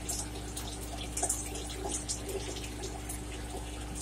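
Close-up wet eating sounds of a jumbo shrimp being pulled from its tail shell and eaten: scattered smacks, slurps and small clicks over a steady low hum.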